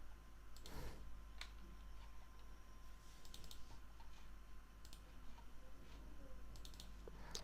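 Faint, scattered clicks of a computer keyboard and mouse as code is edited, a few isolated taps with a short cluster about three seconds in.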